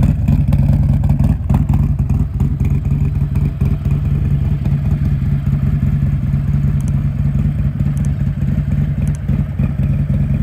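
Harley-Davidson Road Glide's Milwaukee-Eight V-twin, with an S&S 475 cam and Bassani 2-into-1 exhaust, idling steadily as it warms up after a cold start. It has the lumpy lope of the performance cam, not yet at its fullest while the engine is still cold.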